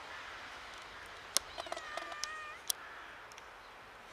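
A grey-and-white kitten meowing once, a single drawn-out call about a second long starting about a second and a half in. It is framed by two sharp clicks, one just before the call and one just after it.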